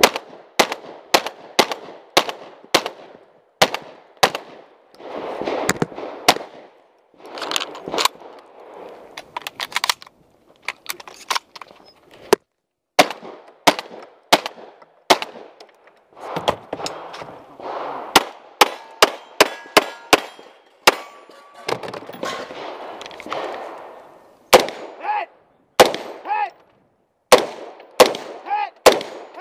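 Dozens of gunshots in quick strings with short gaps: handgun shots during a 3-gun stage, then AR-style rifle shots near the end.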